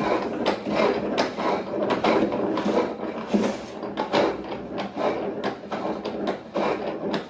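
O-Cedar EasyWring spin mop bucket worked by its foot pedal: a rhythmic mechanical clatter, about one stroke every two-thirds of a second, as the basket spins. The wrap of duct tape padding the worn-down shaft now lets the bearing grip it.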